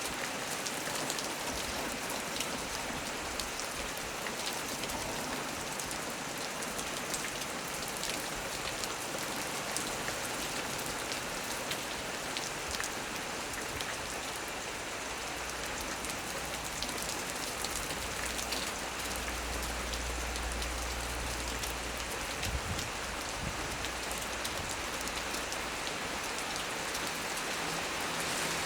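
Heavy rain falling steadily on the leaves of a small tree, thick with the clicks of single drops. A low thunder rumble comes in about two-thirds of the way through and returns faintly near the end.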